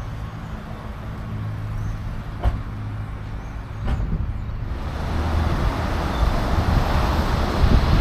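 Car engine running with a steady low hum, two short clicks in the middle, then road and wind noise swelling in the second half as the car gathers speed.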